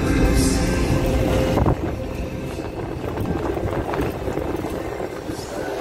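Music that stops abruptly about two seconds in, leaving the low rumble of a vehicle driving over a rough road.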